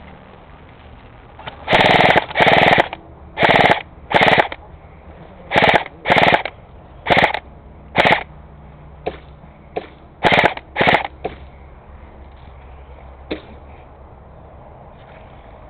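Airsoft electric rifle firing short full-auto bursts, each a fraction of a second of rapid BB shots, about ten bursts in quick succession with a few single shots in between, then one last shot after a pause.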